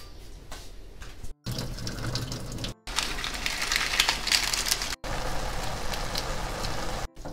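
Water pouring and splashing as boiled instant noodles are drained, in short separate bursts, then the crinkle of a foil seasoning sachet being torn and squeezed.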